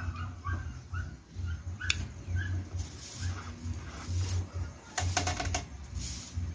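A person chewing smoked meat with wet mouth clicks and lip smacks, the chewing coming as soft low thumps about twice a second. A quick run of sharp smacks comes about five seconds in.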